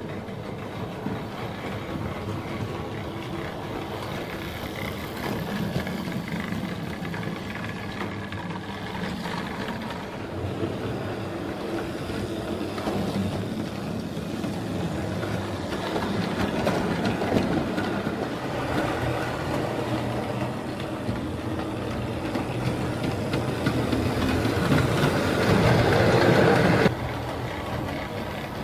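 Hornby Dublo model tank engine running on the layout: electric motor whirring and wheels and wagons rattling over the track, the sound resonating through a hollow baseboard. It grows louder as the train comes close, then drops suddenly near the end.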